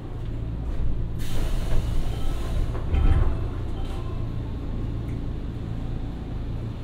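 Inside the cabin of a Nankai 2200 series electric train, a steady low hum of its onboard equipment with no wheel noise. About a second in comes a burst of compressed-air hiss, and about three seconds in a heavy thump.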